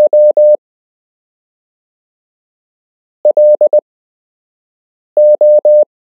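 Morse code practice tones: a steady electronic beep keyed into dots and dashes, sent as separate letters with a couple of seconds of silence between them. Three letters are heard, the last two reading L and O.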